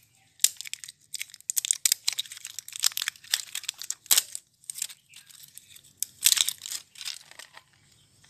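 Plastic shrink-wrap on a pack of batteries crinkling and tearing as it is pulled open, in quick irregular crackles that stop shortly before the end.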